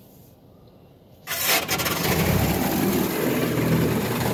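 High-pressure water jets of a PDQ Laserwash 360 Plus touchless car wash starting up and spraying the car, heard from inside the cabin. The spray cuts in suddenly about a second in and then keeps up a loud, steady hiss and drumming on the body and glass.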